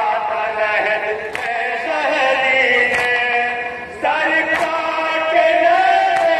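Men chanting a nauha, a Shia lament in Urdu, led by a reciter singing into a microphone, with a group chest-beating (matam) strike in time about every one and a half seconds.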